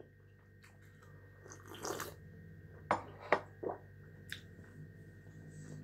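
Close-up mouth sounds of eating and drinking: a slurping sip from a cup about two seconds in, followed by a few short wet clicks and smacks of chewing.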